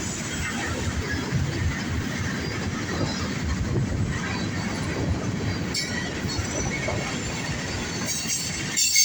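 Cars of a Norfolk Southern mixed freight train rolling past in a steady rumble, with faint wheel squeal and some clickety-clack over rail joints. Near the end the low rumble falls away and a brighter hiss takes over.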